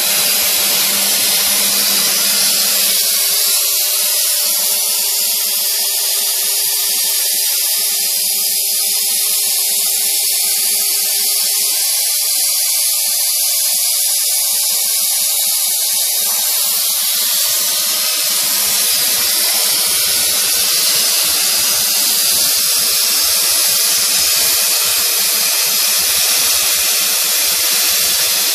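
Small motor of a mini CNC machine running steadily with a high, hissing whine, with faint lower tones that shift partway through.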